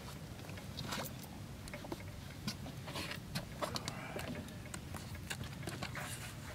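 Scattered light clicks and knocks of fishing tackle being handled in a boat as a rod is taken from its holder, over a faint low rumble.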